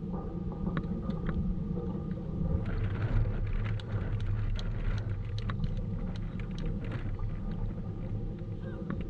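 Tennis balls being hit and bouncing on an outdoor hard court: scattered short, sharp knocks over a steady low rumble.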